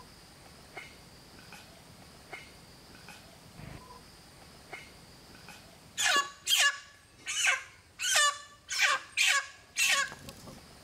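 A live white chicken, held up by hand, squawks loudly about seven times in quick succession starting about six seconds in, each call sliding down in pitch. Before that there is only a faint outdoor background with a steady high whine and scattered faint chirps.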